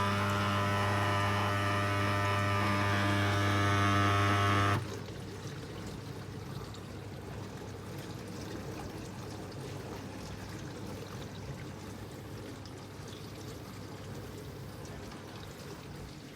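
Midea dishwasher's pump giving a loud, steady hum that cuts off suddenly about five seconds in, leaving water trickling and sloshing inside the tub. The owner counts this noise as unbelievably loud.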